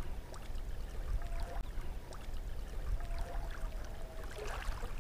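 Wind rumbling on the microphone over small waves lapping at the lake's edge, with faint scattered ticks.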